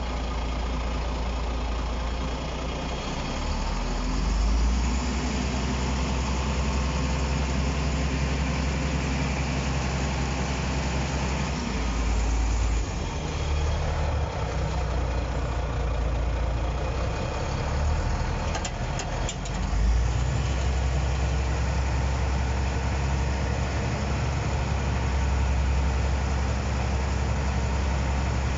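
Bulldozer's diesel engine running steadily, heard from inside the cab, its low note shifting up and down a few times as it works. A few sharp clicks come about two-thirds of the way through.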